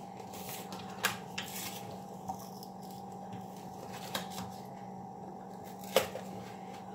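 A heavy-cream carton and measuring cup being handled, with a few faint clicks and rustles, the sharpest near the end, over a steady low hum.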